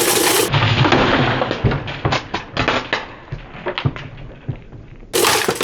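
A vintage Super Deluxe table fan's electric motor buzzing and shorting out, with dense, loud crackling pops of sparking. The pops thin out and fade after about half a second, and the loud buzzing crackle starts again near the end.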